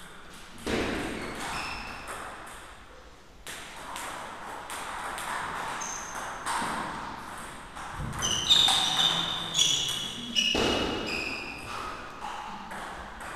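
Table tennis rally: the celluloid ball clicking off the paddles and bouncing on the table, with sharp, ringing pings coming in quick succession in the second half.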